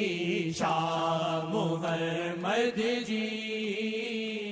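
Devotional naat singing: a voice sings melodic phrases over a steady, held drone.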